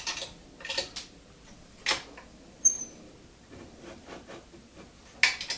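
Scattered light knocks, clicks and scrapes from handling a wooden drill press table and fence, with two sharper knocks, one about two seconds in and one near the end, and a brief high squeak between them.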